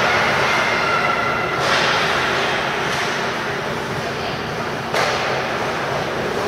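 Ice hockey rink sound: skates on ice, spectators' voices, and sharp knocks of sticks and puck, the clearest about one and a half seconds in and again about five seconds in.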